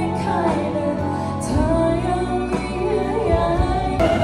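A woman singing a Thai song live into a handheld microphone over backing music, her voice amplified through a PA speaker.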